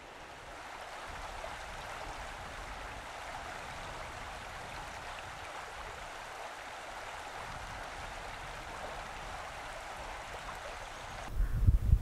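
Steady, even outdoor hiss with no distinct calls or knocks. Near the end it cuts to louder, irregular low rumbles.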